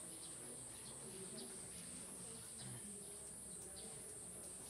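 Steady high-pitched insect drone, slightly wavering, with a faint murmur of voices underneath.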